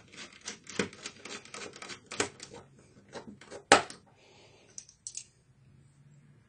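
Rapid, irregular clicking and scraping of a small hand tool on the plastic top case of an HP Mini 110 netbook, with one sharp loud click just before four seconds in. After that, only a few faint ticks and rustles.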